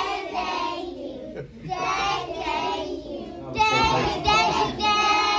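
A class of young children singing a song together, in short phrases with brief breaks between them; the singing grows louder from about three and a half seconds in.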